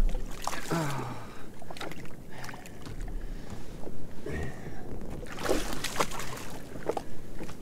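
Water splashing and sloshing against a jet ski's hull as a hooked reef shark thrashes at the surface beside it, loudest about five and a half to six seconds in. Scattered knocks and clicks come in between.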